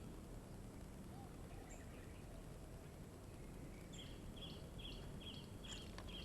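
Steady outdoor background noise; about four seconds in, a small animal starts a run of short, high chirps repeating two to three times a second.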